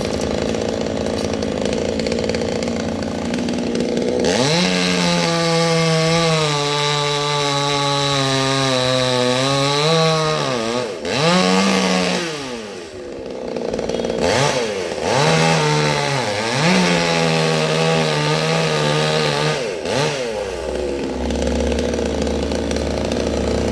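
Chainsaw idling, then opened up to full throttle about four seconds in; its pitch sags slowly while held, as under cutting load in a coconut palm trunk. It eases off and revs up again several times, then drops back to idle near the end.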